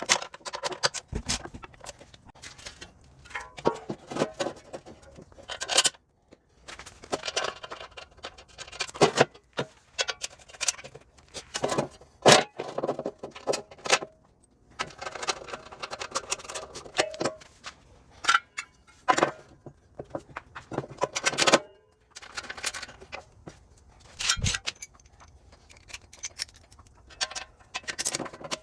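Irregular metallic clinks, rattles and scrapes of hand tools and metal parts being handled, in uneven bursts with short pauses between them.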